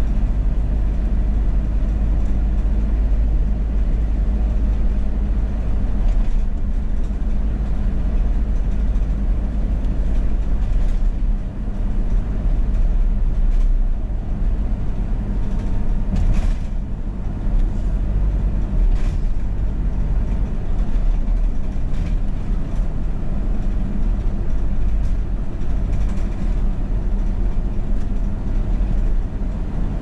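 Steady low rumble of a car driving at highway speed, tyre and engine noise heard from inside the cabin.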